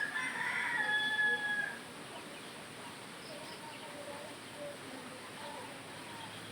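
A rooster crowing once, a single call lasting just under two seconds, followed by faint background with a few small bird calls.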